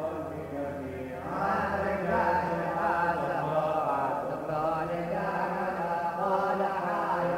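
Syriac Orthodox liturgical chant, voices singing a melodic line that grows louder about a second and a half in.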